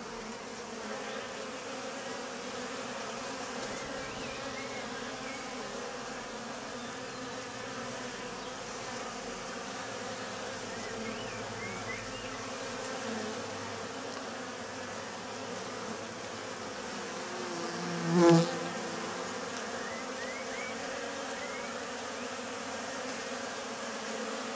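Honeybees buzzing steadily as foragers fly in and out at a hive entrance. About three-quarters of the way through, the buzzing swells briefly much louder.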